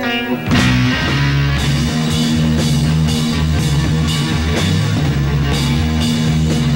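Rock band playing live, instrumental: a held guitar chord gives way about half a second in to the full band, with drum kit, bass and electric guitar playing a steady beat.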